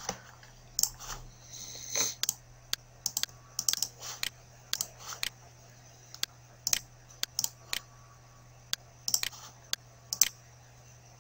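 Irregular clicks and taps of a computer keyboard and mouse, singly and in small clusters with short pauses, over a faint steady low hum.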